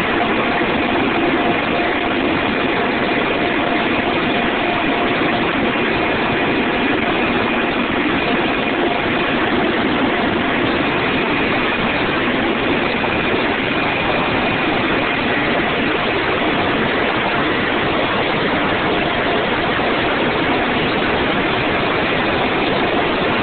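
HH-65 Dolphin helicopter's turbine engines and rotors running steadily: a loud, even roar with steady high whines running through it.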